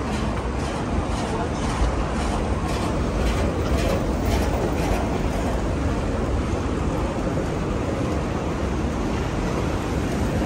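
Steady rumbling and hissing background noise of an underground rail station, with faint regular ticks about twice a second in the first half.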